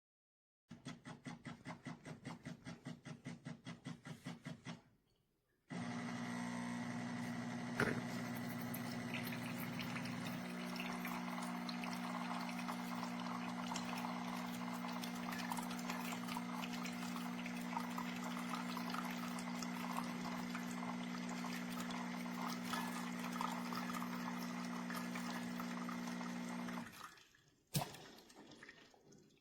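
Espresso machine pump pulsing rapidly for about four seconds, then running steadily with water flowing for about twenty seconds before cutting off, followed by a click.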